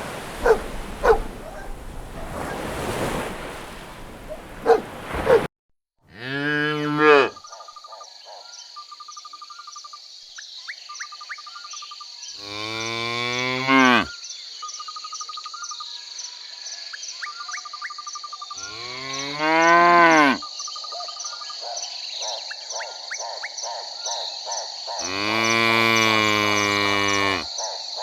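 Cows mooing: four long, drawn-out moos about six seconds apart, the last the longest. A steady chorus of crickets chirps throughout. Before a cut about five seconds in, there is a noisier stretch of short duck-like quacking calls.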